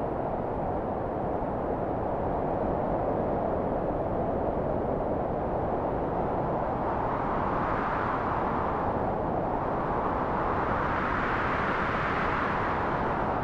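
Strong wind blowing: a continuous rushing noise, with gusts that swell and rise in pitch about two-thirds of the way in and again near the end.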